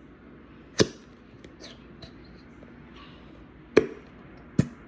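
Three sharp knocks from a plastic glue bottle handled over a bowl to get the glue out: one about a second in, two near the end.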